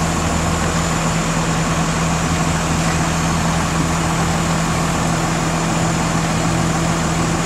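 A heavy machine's diesel engine running steadily at a constant speed, a low even hum with no change in pitch.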